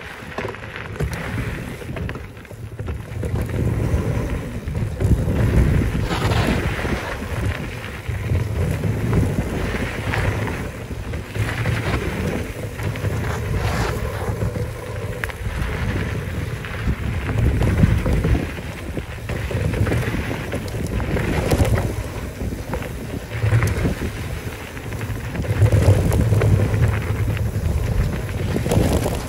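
Mountain bike descending a dusty dirt trail at speed: wind buffeting the microphone in gusts over the rumble of tyres on dirt, with a few sharp knocks as the bike hits bumps.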